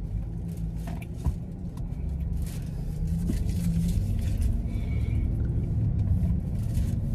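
Road and engine rumble inside a moving SUV's cabin, growing a little louder about three seconds in, with light crinkling of a plastic food bag.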